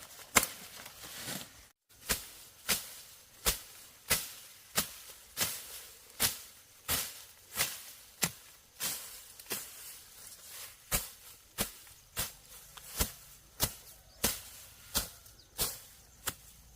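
Steady, rhythmic chopping with a hand tool, a sharp strike about every 0.7 seconds, typical of field work such as hoeing or cutting stalks.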